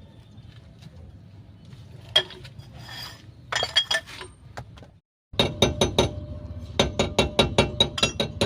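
Hand tools clinking on metal during rear wheel hub bearing work: a few sharp clinks, then after a brief break a rapid run of ringing metallic taps, about four a second, over a low steady hum.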